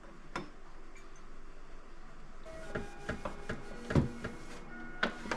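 Plastic and glass condiment bottles and jars being set into refrigerator door shelves: scattered clicks and knocks, busier after about two and a half seconds, with the sharpest knock about four seconds in.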